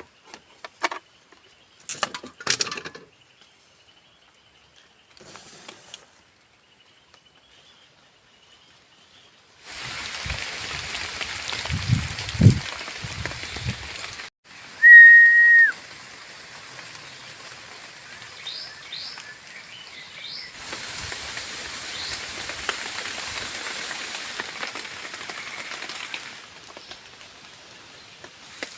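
A few sharp knocks, then a steady hiss of rain falling. A little over halfway in, one loud whistled note lasts about a second and drops in pitch at its end, followed by a few short high chirps.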